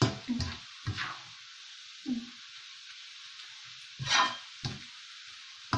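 Shredded chicken and onion sizzling steadily in hot oil in a frying pan, with a slotted spatula scraping and knocking against the pan in irregular stirring strokes. The chicken is being fried down until dry and golden to make chicken floss.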